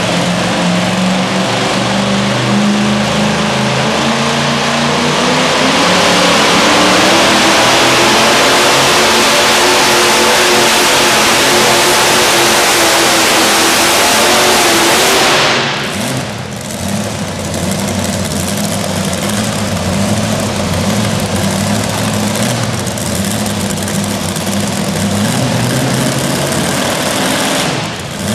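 Super modified 2WD pulling truck's engine running at full throttle under the load of the sled, loud and dense with the pitch wavering. About halfway through the throttle is cut suddenly and the engine drops to a lower, steadier running sound for the rest.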